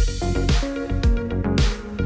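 Background electronic music with a steady beat: a kick drum a little under twice a second under held melodic notes.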